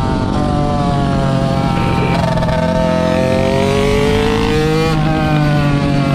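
Mini motorcycle engine running under riding load. Its pitch eases down, climbs steadily through the middle and drops sharply about five seconds in, as at a gear change.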